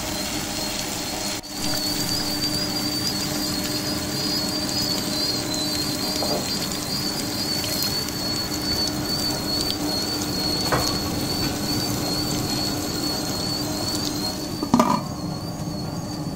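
Electric grinder motor running steadily with a high, wavering whine, grinding the batter. A short knock about fifteen seconds in.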